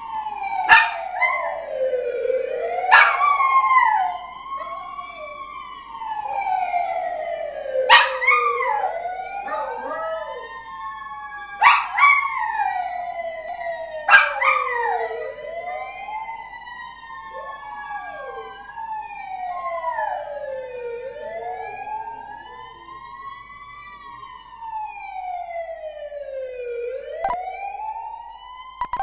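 A wailing emergency siren, its pitch sweeping slowly up and down, with a small dog howling along to it. Several sharp, loud howl onsets stand out about 1, 3, 8, 12 and 14 seconds in.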